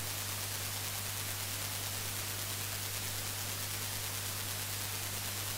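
Heavily amplified speaker noise from a vintage cassette deck's right channel at full output on play-pause: a steady hiss and low hum with a faint, rapid, oscillating clicking. The noise comes from the 2SC2240 transistor fitted in place of the original noisy 2SC458, which is not a good match for it.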